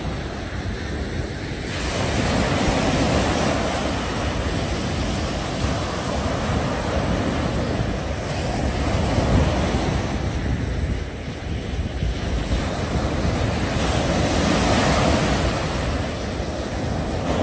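Small waves breaking and washing up a sandy beach, the surf swelling and easing as each wave comes in, with wind buffeting the microphone.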